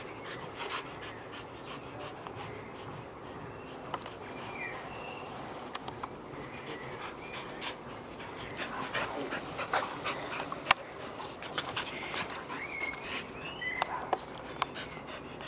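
Two Schapendoes dogs play-fighting on grass: scuffling, with scattered short sharp clicks and a few brief high squeaks.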